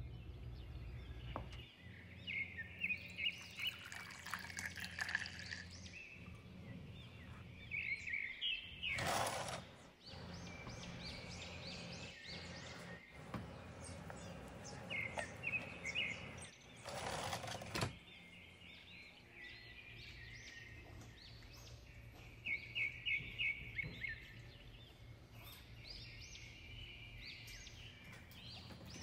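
Small birds chirping in quick runs of short notes, on and off, over a steady low hum. Twice, about nine and seventeen seconds in, a brief rush of noise passes.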